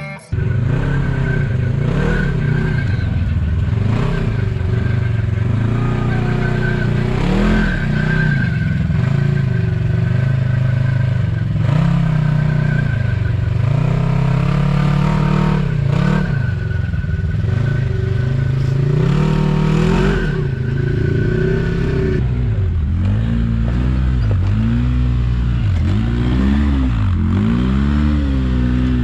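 Side-by-side UTV engines revving up and down at low speed while crawling over rock ledges, with several clunks along the way. In the last several seconds the engine pitch rises and falls in quick blips.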